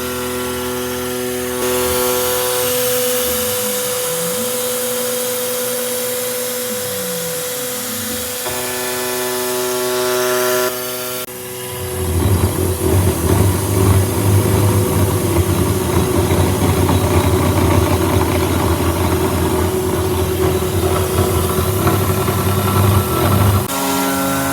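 CNC boring mill running: a steady motor whine whose tones glide down and back up as the machine moves. About eleven seconds in, a milling cut begins, a loud, rough, uneven grinding of the cutter in metal, which stops shortly before the end.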